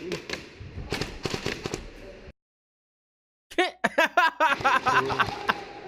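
Airsoft guns firing: a string of sharp pops, broken by about a second of dead silence. After the silence come louder, denser pops mixed with raised voices.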